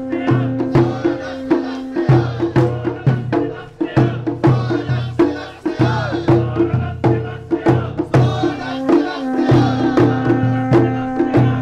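Japanese festival procession music: drums and sharp knocking percussion beat a quick, steady rhythm over sustained held notes.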